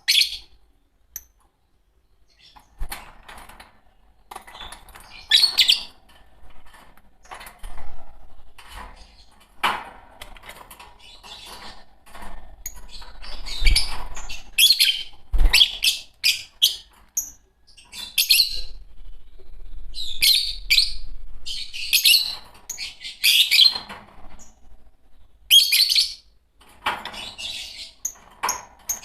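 A pair of Fischer's lovebirds chirping and calling in short, shrill bursts at an irregular pace, with a couple of dull knocks about halfway through.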